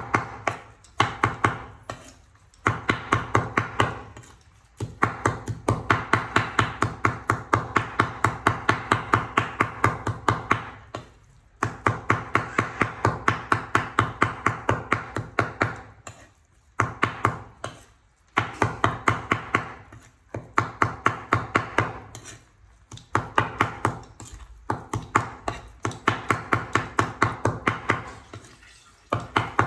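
A broad cleaver chopping on a wooden board, mincing raw prahok (fermented fish paste) with green herbs. It goes in runs of quick, even knocks, a few each second, broken by short pauses.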